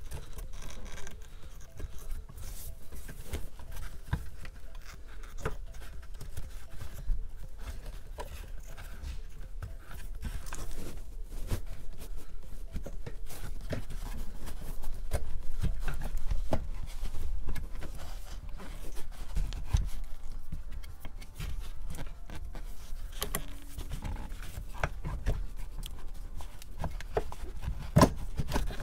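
Ratchet wrench turning a nut on a Subaru manual shifter's rear bracket, with scattered clicks, light metal knocks and scraping as the parts are handled. One sharper knock comes near the end.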